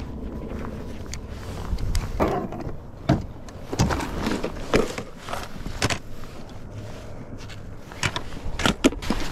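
Plastic tackle box being handled, opened and rummaged through: a run of sharp clicks and knocks from the lid and trays, starting about two seconds in, with a quick cluster near the end.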